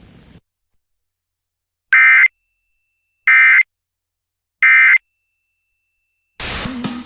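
Three short Emergency Alert System end-of-message data bursts, the digital 'NNNN' tones that close a warning. Each is a harsh electronic warble lasting under half a second, about 1.3 seconds apart, with silence between them.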